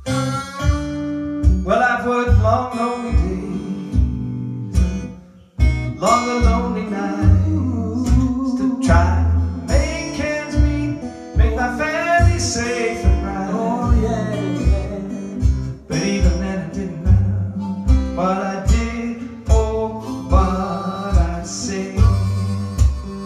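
Live acoustic blues: acoustic guitar played to a steady low beat, with a bending harmonica melody over it.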